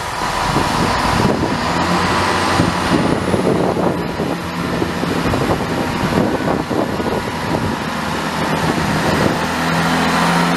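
Chiltern Railways diesel multiple unit moving past at low speed, its underfloor diesel engines running with a steady drone. A thin high whine rises about two seconds in.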